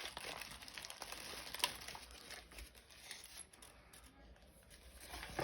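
Crinkling and rustling of a new door lock's packaging and paper instructions being handled, busiest in the first two seconds, with a sharp click a little over a second and a half in and a short knock near the end.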